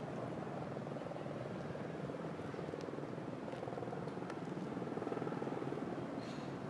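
Helicopter running, its rotor beating in a rapid, even chop at a steady level.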